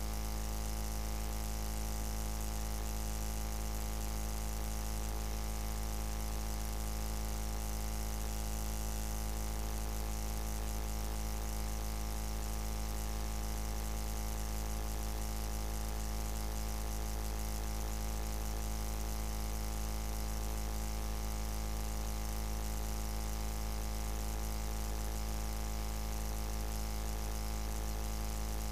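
Steady, unchanging low hum with hiss, the same throughout and with no other sounds over it.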